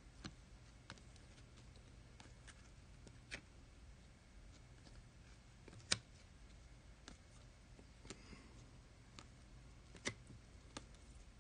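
Near silence with faint, scattered clicks of trading cards being handled; the sharpest click comes about six seconds in and another about ten seconds in.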